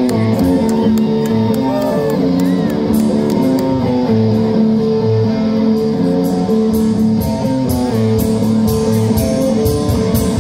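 A live rock band playing: electric guitar and bass over drums, with regular sharp cymbal-like hits keeping the beat.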